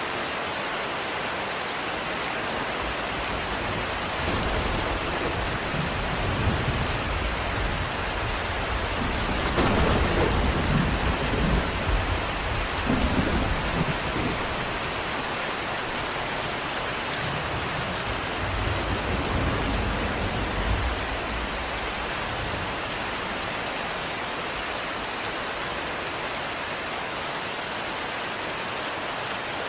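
Steady heavy rain hissing, with a long low rumble of thunder that builds a few seconds in, is loudest in the middle and fades out well before the end.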